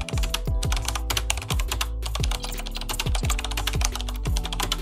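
Background music with a deep kick drum beating about every half second, under dense, rapid clicking.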